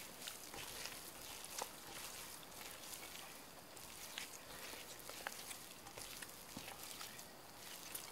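Sticky, still-shaggy enriched bread dough being worked by hand in a glass bowl: faint wet squishing and crackling, with scattered small clicks as the dough pulls away from the hands and the glass.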